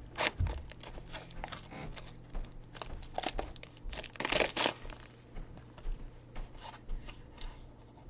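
Packaging of a USB-C to HDMI adapter being torn open and handled: irregular crinkling and tearing with scattered sharp clicks, the longest tear about four seconds in.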